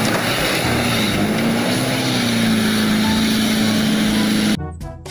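A loud, steady engine-like drone with a wavering hum under heavy hiss. It cuts off suddenly near the end, and a children's tune starts.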